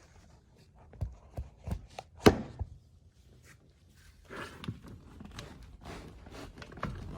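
Lexus RX steering wheel being worked loose by hand on its steering shaft: a few sharp knocks and clunks, the loudest about two seconds in, then a few seconds of rubbing and rattling.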